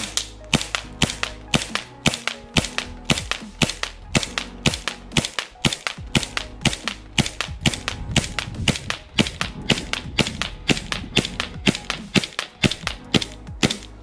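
G&G GPM92 gas blowback airsoft pistol, a Beretta 92FS replica, firing a long, rapid string of semi-automatic shots, about three or four sharp cracks a second as the metal slide cycles.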